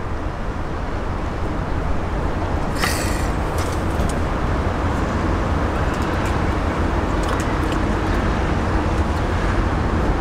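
Steady low outdoor rumble, with the weight deep in the bass like distant road traffic or wind, and one light tap about three seconds in.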